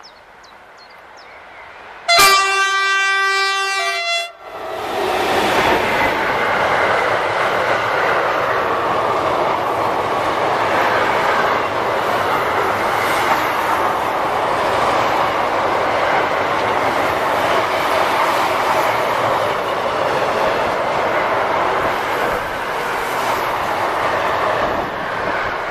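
BB 37000 electric locomotive sounds one horn blast of about two seconds. Its freight train of car-carrier wagons then runs past with steady wheel-and-rail noise.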